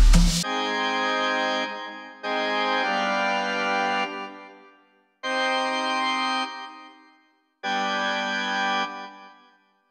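Background music: electronic drum music cuts off just after the start, then four held organ-like keyboard chords, each lasting a second or two and fading away, with short silences between them.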